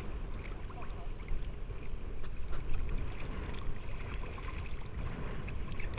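Sea water sloshing and gurgling around the camera, over a steady low rumble, with a few faint clicks.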